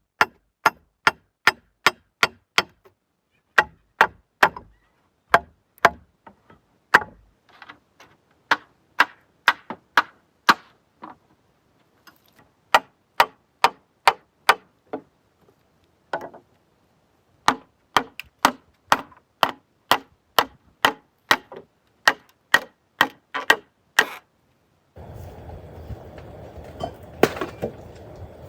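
Hammer blows on wood, sharp and regular at about two a second, in several runs with short pauses between them. An outdoor background comes back near the end.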